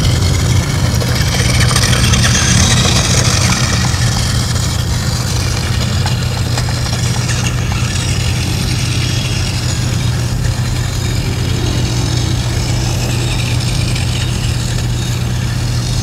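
An engine idling steadily: an even, unbroken low hum.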